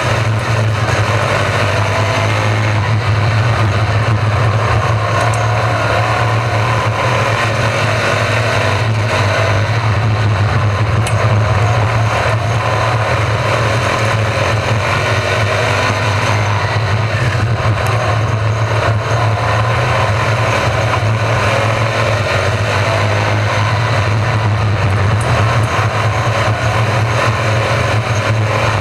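Racesaver sprint car engines running on a dirt oval, their pitch rising and falling as cars pass, over a steady low hum.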